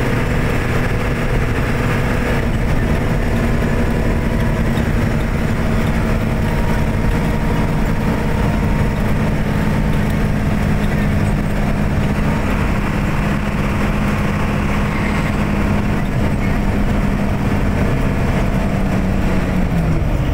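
Engine and road noise of a moving vehicle heard from inside it, a steady low rumble with an engine hum that drops in pitch near the end as the vehicle slows.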